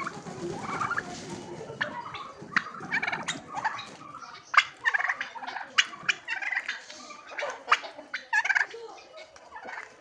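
Domestic turkeys gobbling again and again, a rattling run of sharp calls from the flock. A burst of wing flapping comes right at the start.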